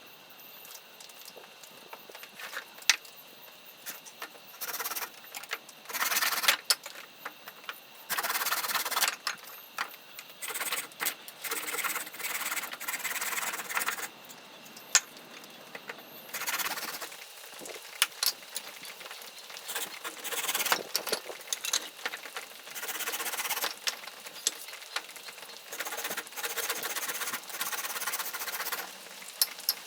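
Hand saw cutting dry branch firewood: runs of rasping back-and-forth strokes, broken by pauses and a few sharp knocks. The dry wood is hard going for a hand saw.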